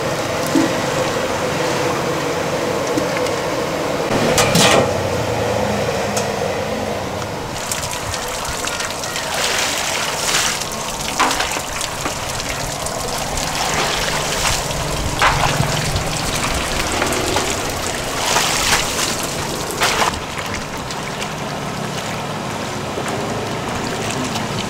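Water splashing and sloshing as hands wash cut leafy greens in a basin of water, with several louder splashes from scooping and pouring water over them, over a steady background hiss.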